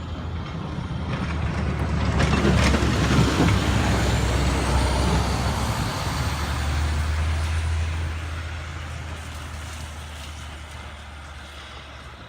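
A vehicle passing by, truck-like in weight. Its noise swells to a peak about two to three seconds in, then fades slowly away over a steady low hum.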